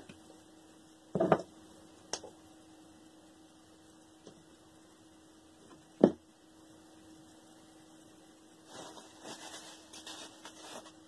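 Hands working on a circulator pump's parts at a bench: two sharp knocks, about a second in and about six seconds in, and a lighter click between them, then scratchy rustling of a rag near the end, over a steady faint hum.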